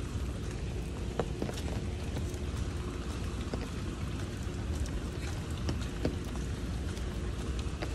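Light rain falling on wet paving, with scattered drips and ticks over a steady low rumble.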